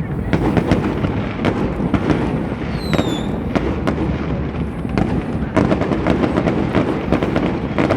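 Fireworks display: a rapid, continuous barrage of bangs and crackles, with a brief falling whistle about three seconds in and a short lull just after the fifth second before the bangs come thick again.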